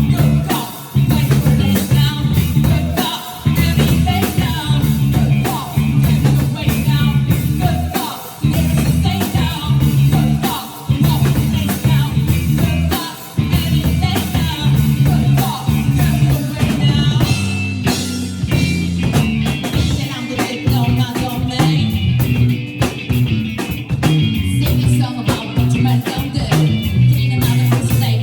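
A live band playing a song: drum kit, bass and guitar, with a singer.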